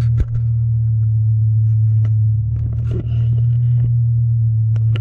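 BMW M5 V10 engine idling, a steady low drone heard from inside the cabin. A few knocks and scrapes from the camera being moved on the dashboard sit on top, the sharpest just after the start and others around two and three seconds in.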